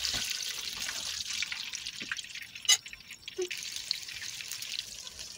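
Eggplant slices frying in hot oil in a pan: a steady sizzle full of fine crackles, with one sharp click a little under three seconds in.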